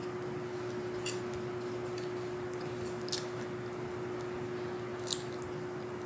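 Eating noises from a rice and meat meal: three short, sharp clicks about two seconds apart, over a steady hum and hiss.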